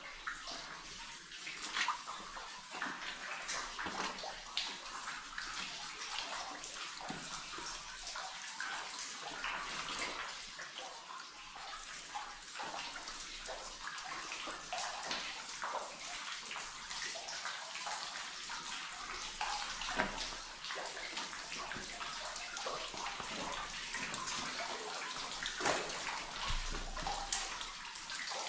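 Water running and splashing: a continuous wash dotted with many small, irregular splashes and drips.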